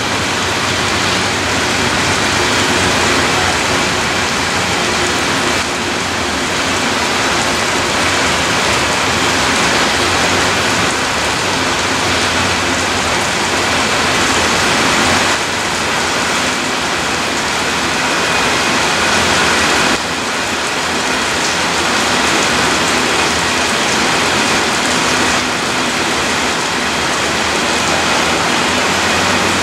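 Loaded open-top rock cars of a freight train rolling past: a steady rush of steel wheels on rail.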